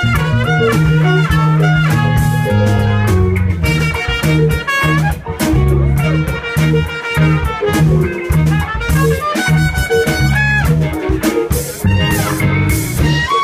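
Live band playing: a trumpet plays a moving melody over electric guitar and a drum kit.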